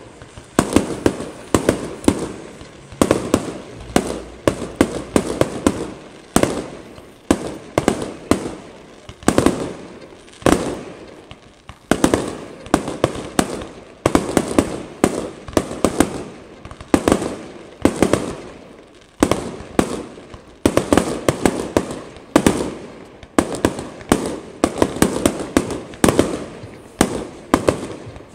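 Fireworks display: a continuous run of sharp bangs from bursting shells, one to several a second, each dying away in an echoing tail.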